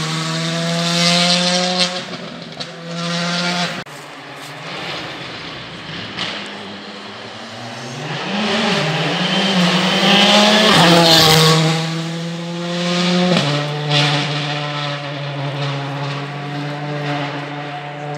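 Rally car engine running at high revs on the stage, its pitch holding steady and then dropping at several gear changes, with a rise in revs as it accelerates. It is loudest about ten to eleven seconds in.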